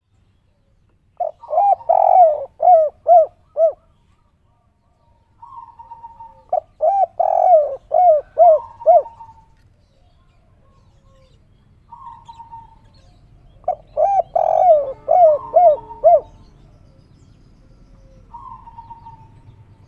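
Spotted dove singing its 'kuk 3' cooing song: three loud phrases a few seconds apart, each a quick run of five or six rounded coos. Softer single calls come between the phrases.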